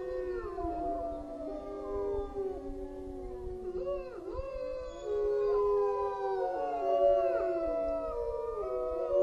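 A chorus of howling: several long, overlapping howls that glide up and down in pitch and are layered over one another.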